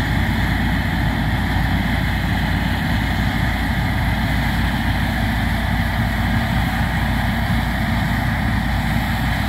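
New Holland TX68 combine harvester running steadily while cutting barley, its engine and threshing machinery making an even, heavy drone.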